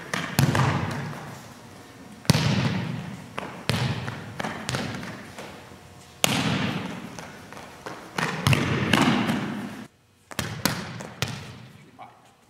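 A volleyball being struck and bouncing on a hard gym floor: a series of sharp smacks a second or two apart, each followed by a long echo in the hall.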